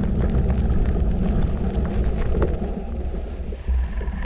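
Steady low wind rumble buffeting the microphone of a moving e-bike rider, with scattered small knocks and rattles from the ride.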